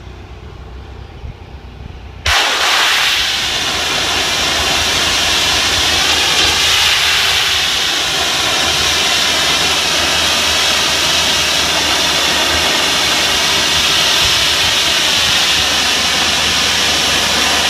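A gum-removal machine's spray wand blasting a high-pressure jet that cuts in suddenly about two seconds in and then hisses loud and steady. A low machine hum sits under it before it starts.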